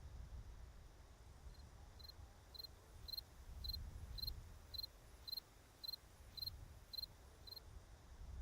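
A short high chirp repeated steadily about twice a second, a dozen times, over a faint low rumble.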